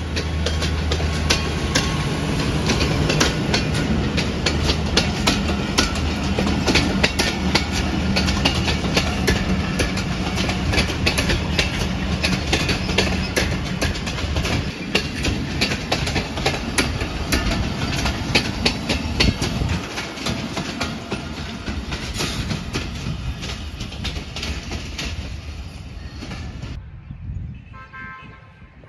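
Passenger train coaches rolling past close by: a continuous rumble of wheels on rail, with rapid clicking as the wheels cross the rail joints, over a steady low drone that fades out about halfway through. The train sound cuts off abruptly near the end, leaving much fainter sound.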